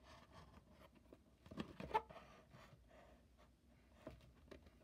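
Faint handling of a toy car's cardboard-and-plastic blister pack in the hand, a few soft rustles and clicks about a second and a half to two seconds in, over quiet room tone.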